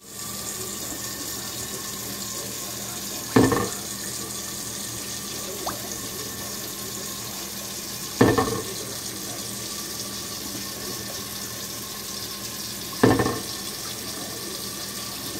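Tap water streaming steadily onto a glass pot lid in a stainless steel sink. The lid clanks against the sink three times at even intervals, about every five seconds, with a faint tick between the first two.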